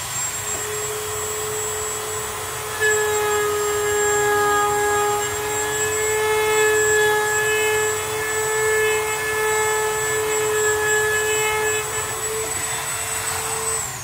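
Corded rotary tool running at a steady high whine, getting louder from about three seconds in as it is pressed into the model helicopter's fuselage, and winding down at the end.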